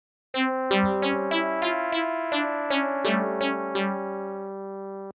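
A sampled retro synth patch from the Retro ASR set, sampled from an old Ensoniq ASR, played on a keyboard. It plays a run of about eleven overlapping notes, some three a second, each with a sharp bright attack that rings on. The sound is cut off suddenly near the end.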